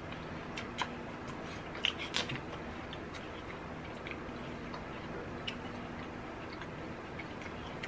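Green apple slices being bitten and chewed, a few scattered crunches and mouth clicks over a steady faint hum.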